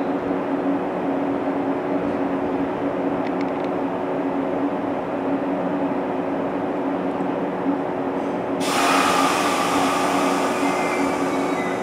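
Electric multiple-unit train standing at the platform, its onboard equipment running with a steady hum of several low tones. About nine seconds in, a loud air hiss starts suddenly: the brakes releasing as the train gets ready to pull away.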